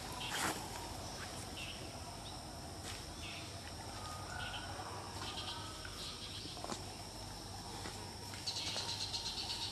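Insects chirping steadily in the undergrowth, a high chorus that turns louder and pulsing near the end, with a couple of sharp clicks.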